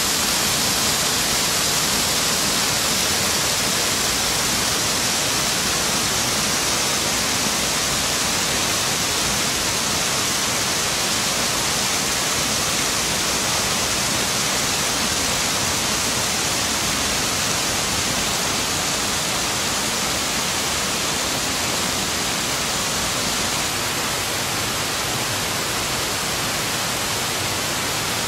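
The Lesina mountain torrent's water rushing steadily, an even hiss without a break.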